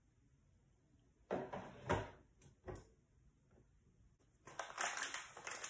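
Handling noises in a kitchen: a few knocks and clatters about a second in, then a stretch of rustling and scraping near the end.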